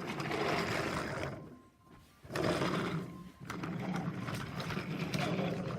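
A child's voice making rough, growling engine noises in three stretches, with short breaks about two seconds and three seconds in.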